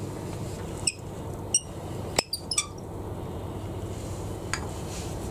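Several sharp metallic clinks with a brief ring, five in quick succession and one more a couple of seconds later, as the workpiece and the steel four-jaw lathe chuck are handled, over a steady low hum.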